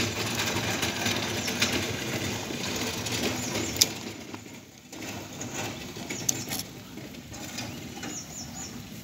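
Rustling handling noise and a couple of sharp clicks as a Fujikura CT-30 fiber cleaver is turned over in the hand, with short high bird chirps twice in the background.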